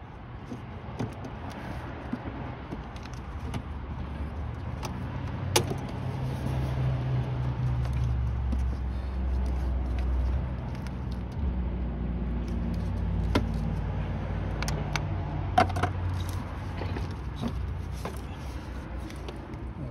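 Scattered light clicks and clinks of hand-handled engine-bay parts and tools, over a low engine rumble of a motor vehicle that swells through the middle and then eases off.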